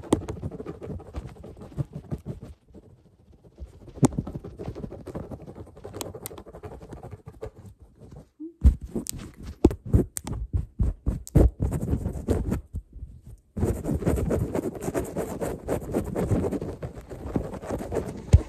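Fingertips rubbing, scratching and tapping right at a phone's microphone as a mimed head massage: irregular sharp taps and scratchy rustling with a few brief pauses, turning into continuous dense rubbing in the last few seconds.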